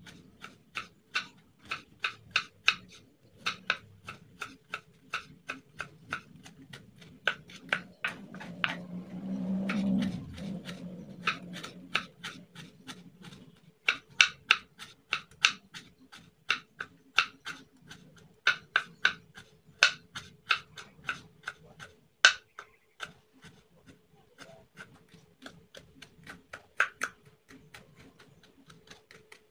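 Kitchen knife slicing fresh turmeric root finely on a wooden cutting board: a run of sharp knocks of the blade on the board, about three a second, with short pauses. A brief low rumble about ten seconds in.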